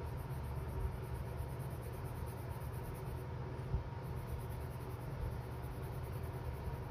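Deli Nuevo watercolour pencil scratching on paper in quick back-and-forth shading strokes, with a short break about three seconds in, over a low steady hum.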